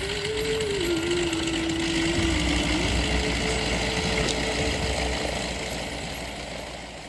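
Boeing Stearman biplane's radial engine and propeller droning in flight over a rushing haze. The pitch dips a little about a second in and comes back up about three seconds in, and the sound fades gradually near the end.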